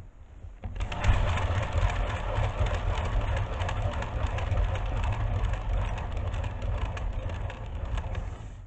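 Wooden lazy susan turntable spun by hand, its bearing rumbling steadily with small rattling clicks. The rumble starts about a second in and cuts off near the end when the spin is stopped.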